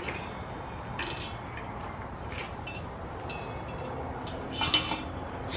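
Metal parts and tools clinking during work on a dirt-bike wheel and axle: about five light clinks with a short ring, the loudest cluster near the end.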